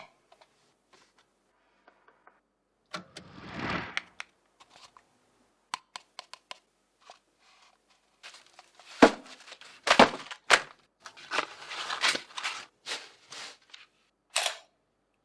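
Paper fast-food packaging being handled, pulled apart and flattened: a McDonald's fries carton and burger box. There is crinkling and tearing of paperboard with light knocks on a wooden counter, in scattered bursts that are busiest over the second half.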